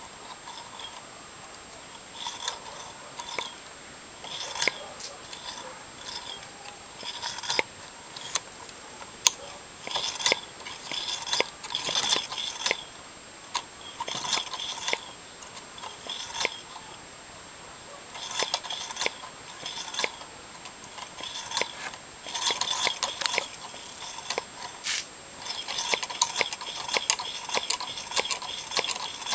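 Homemade tin-can Stirling engine running, its wire crank and linkage clicking and rattling in irregular bursts of short taps.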